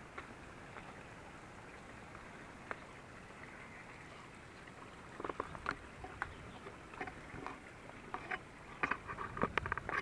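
Footsteps on loose river stones, rocks clacking and knocking underfoot in irregular strikes that start about halfway through and come thicker near the end, over a steady faint hiss.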